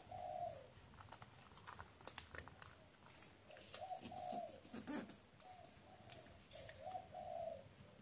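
A dove cooing, a short low coo phrase repeated several times, mixed with the crisp rustle and crease clicks of a sheet of origami paper being folded by hand, busiest in the middle.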